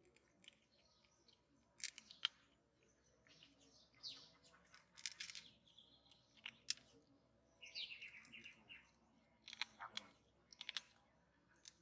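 A kitten crunching dry kibble in short, sharp, irregular crunches. A few bird chirps come in around the middle.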